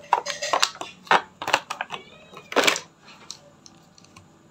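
Hard plastic clicking and knocking as the grip and phone clamp of a 3-in-1 cellphone holder are handled and fitted together. A quick, irregular run of sharp clicks fills the first three seconds, the loudest just before the three-second mark, then a few faint ticks.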